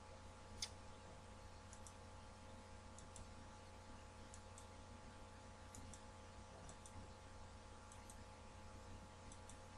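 Near silence: room tone with a steady faint hum and faint small clicks, mostly in close pairs about every second and a half, with one slightly louder click near the start.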